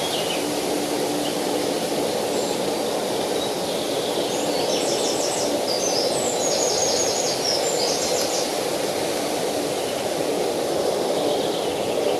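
River water running steadily, with a small bird singing several rapid trilled phrases in the middle of the stretch.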